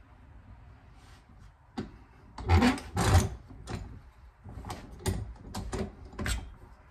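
Metal springer fork leg being worked and handled in a bench vise: two short scrapes between two and three seconds in, then a series of lighter knocks and clicks.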